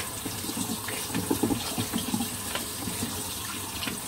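Kitchen tap running into a stainless steel sink, water splashing through a plastic colander as a hand stirs boiled honey mushrooms in it to rinse them.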